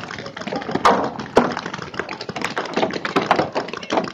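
Paintball markers firing during a game: a dense, irregular crackle of short pops, several a second, with a couple of louder shots about a second in.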